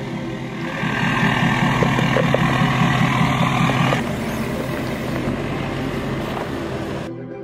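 A motor vehicle's engine running, loudest in the first half with a fast pulsing drone, then easing off. It cuts off abruptly near the end.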